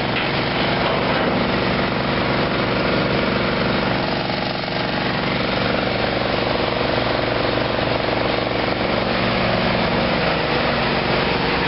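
An engine running steadily at a constant speed, with a low, even hum.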